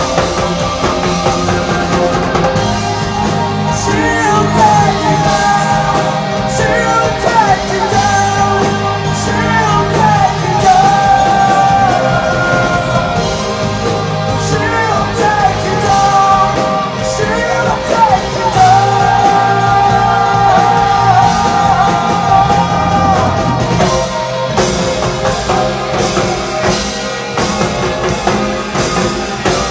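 Live post-rock band playing loud, with electric guitars and a drum kit under a male voice singing long, wavering lines. The voice drops out a little after twenty seconds, and heavy cymbal crashes and drums take over near the end.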